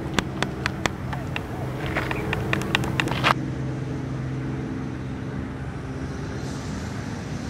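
A steady engine drone with a low even hum, with a run of sharp clicks over the first three seconds or so that stop suddenly.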